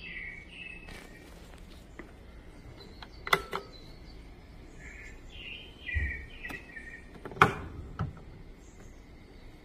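A few sharp clicks and knocks as the plastic casing of an Olive OLV-5 oxygen concentrator is handled: two loud ones about three and seven and a half seconds in, each followed by a smaller one. Short high chirps come and go in the background.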